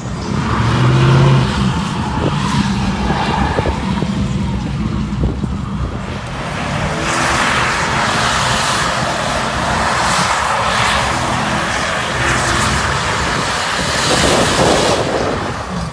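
Four-door GMC pickup doing donuts: the engine revs hard at first, then from about seven seconds in a loud hiss of spinning, smoking tires takes over.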